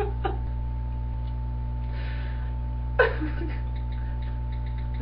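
Steady low electrical hum with a faint steady whine above it. Over it come a woman's quiet breath about two seconds in and a short, sharp vocal sound, the loudest event, about three seconds in.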